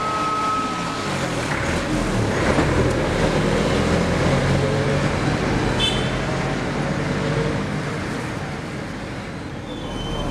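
Street traffic noise with vehicles passing; engine sound swells in the middle. A steady tone fades out about a second in, and a brief high-pitched sound comes through about halfway.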